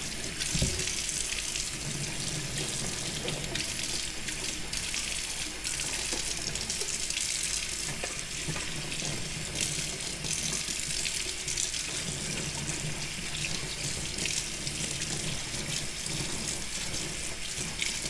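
Kitchen tap running steadily, its stream splashing over a dishwasher's metal mesh filter plate into a stainless steel sink as the filter is rinsed clean of deposits.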